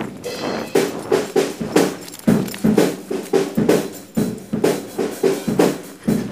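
Drum kit played in a steady beat, about two strong hits a second with lighter strokes between, by an amateur drummer.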